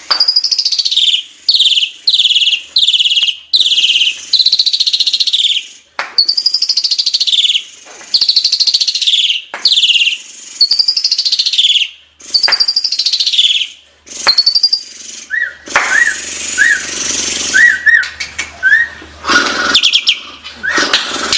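Jalak suren (Asian pied starling) singing: runs of loud whistled notes, each sliding down in pitch, about two a second with short pauses between runs. From about 15 seconds in, the song turns into harsh, noisy chattering laced with short squeaky notes.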